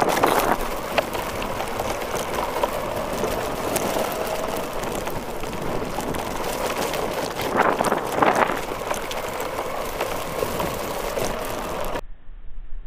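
RC car driving over grass, heard from a camera mounted on the car: a steady, noisy rattle and rumble of the motor and chassis on rough ground, with louder spells near the start and about eight seconds in. Near the end the sound changes abruptly to a quieter, duller one.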